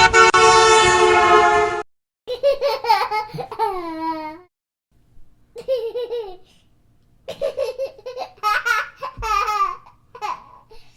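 A loud, steady horn-like blast of about two seconds that cuts off suddenly, followed by short bursts of high-pitched, squeaky voice-like babbling with sliding pitch.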